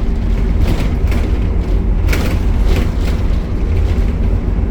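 Optare Solo bus running with a heavy, steady low rumble, with short rattles and knocks every half second or so.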